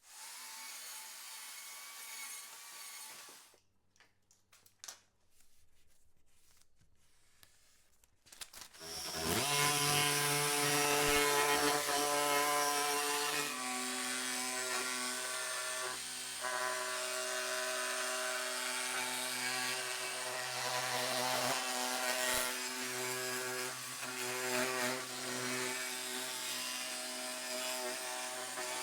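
An electric power tool spins up about nine seconds in and runs steadily while cutting wood. Its pitch shifts partway through as the cut changes. Before that there are softer handling sounds.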